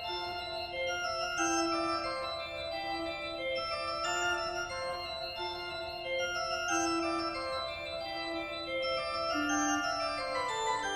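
Background instrumental music: long held keyboard notes over a slowly moving melody.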